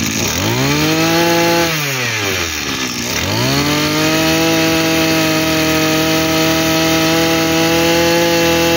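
Maruyama 23 cc two-stroke brush-cutter engine revved up to a high, steady speed. It drops back about two seconds in, then climbs again and holds high, running cleanly.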